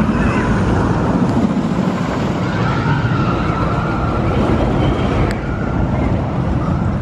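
Roller coaster train running over an RMC wooden coaster's Topper Track, a loud steady rumble through the wooden structure, with a wavering high-pitched whine over it for a few seconds in the middle.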